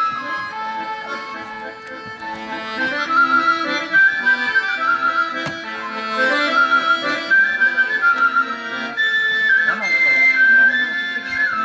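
A svirel (folk flute) plays a lively folk melody, accompanied by garmon button-accordion chords beneath it.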